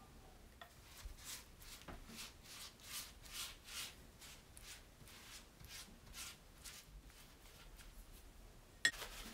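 Silicone pastry brush swishing over thin rolled dough, spreading melted butter in quick strokes, about three a second. The strokes fade about two-thirds of the way through, and a single sharp click comes near the end.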